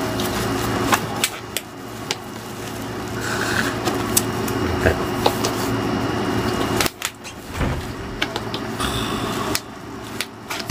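Hands handling and opening a cardboard gimbal box: scattered taps, clicks and scrapes over a steady hum.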